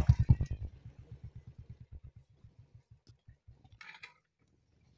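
Motorcycle engine running with an even low beat of exhaust pulses, about ten a second, fading away over about four seconds.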